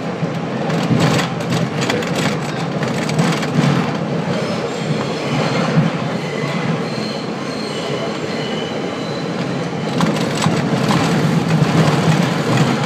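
R42 subway train running through a tunnel: a steady rumble of wheels on rail with clacks over rail joints. Faint high wheel squeal comes in midway, and the running gets louder near the end.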